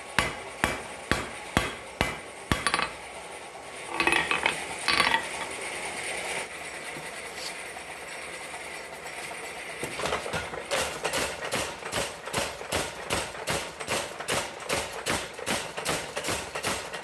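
Blacksmith's hammer forging steel bar on an anvil. Sharp blows come about two a second at first, with a ringing metallic clinking around four seconds in. After a stretch of steady noise, a quicker, even run of lighter strikes, about three a second, begins near ten seconds in.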